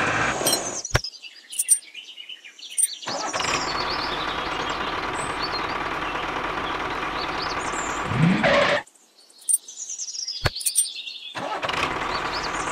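Tractor engine running steadily, cutting out abruptly twice; just before the second stop its pitch rises briefly. Birds chirp in the gaps.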